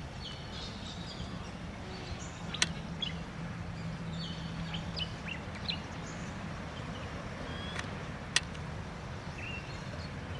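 Scattered short, high bird chirps and calls over a steady low background hum, with two sharp clicks, about two and a half and eight seconds in.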